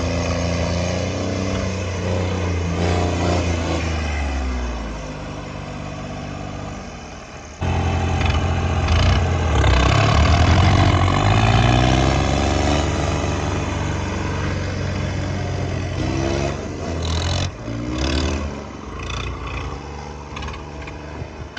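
Tractor diesel engines running hard, the pitch rising and falling as they are revved. About halfway through, the sound changes abruptly and comes back louder.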